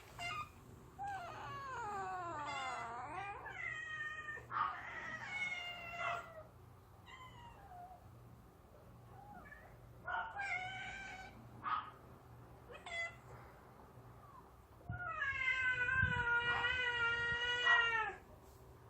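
Stray cats meowing repeatedly. A long call falls in pitch about a second in, several shorter meows follow, and a long, drawn-out meow lasting about three seconds comes near the end.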